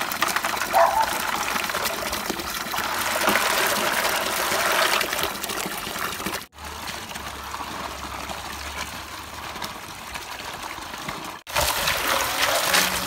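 Water trickling and splashing. The sound cuts off and restarts abruptly twice, so it comes in three separate stretches.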